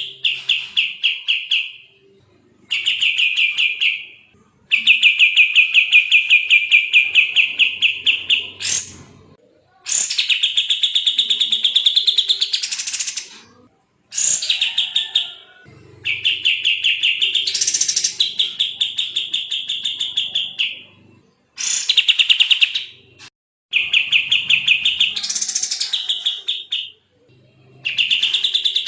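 Kapas tembak bulbul singing fast, tightly packed song: long runs of rapidly repeated high chirps, several a second, some rising into higher sweeping notes, in bursts of a few seconds with short pauses between.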